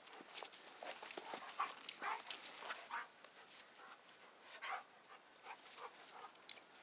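Two Doberman Pinschers playing close together, panting hard with short, irregular breathy mouth sounds. These come thickest in the first three seconds and again briefly near five seconds.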